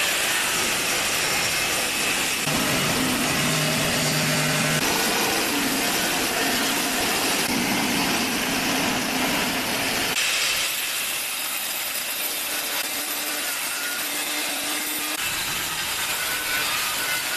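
A power tool running steadily under load, a dense rasping noise that changes character about ten seconds in.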